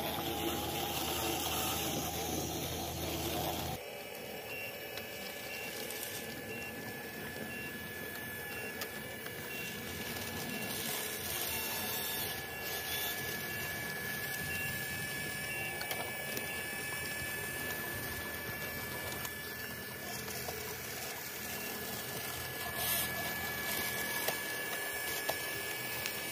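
Small electric motors and gearboxes of radio-controlled bulldozer and excavator models whirring as they work soil, with a steady high-pitched whine. The sound changes abruptly about four seconds in.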